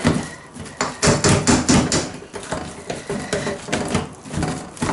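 Potato masher working boiled skin-on potatoes with butter and milk in a pot, knocking against the pan in repeated irregular strokes, a few a second.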